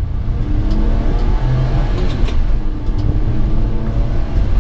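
1993 Honda Acty kei truck's small 660cc three-cylinder engine running under way, heard from inside the cab, its note shifting in pitch with the throttle over a steady low rumble.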